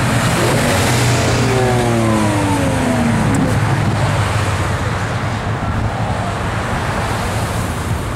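Lamborghini Aventador's V12 and other cars' engines running at low speed as they pull away. A steady low engine note runs throughout, while another engine's pitch falls steadily over about three seconds in the first half.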